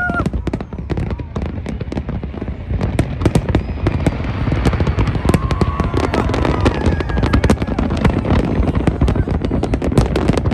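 Large fireworks display: a continuous, rapid barrage of bangs from many shells bursting at once, with no let-up.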